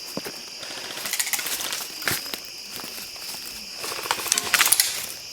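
Outdoor ambience: a steady high-pitched insect drone, with two bursts of rustling and a few sharp clicks.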